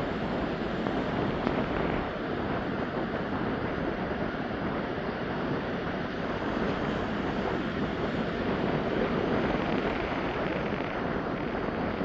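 Ocean surf breaking and washing up the beach: a steady rush of waves that swells and eases slightly.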